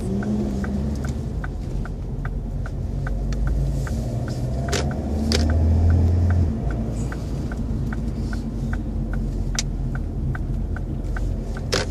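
Car turn indicator ticking evenly about twice a second inside the cabin, over the car's steady engine and road rumble. The rumble grows louder for a couple of seconds in the middle, and a few sharper knocks come through.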